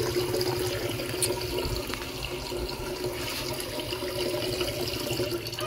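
Tap water running steadily into a container, filling it for a powdered electrolyte drink for chickens, with a low steady hum beneath it.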